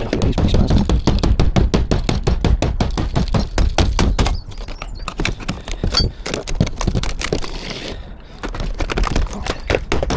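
Rapid, irregular clattering and knocking from demolition of an old conservatory roof, with a short lull about eight seconds in.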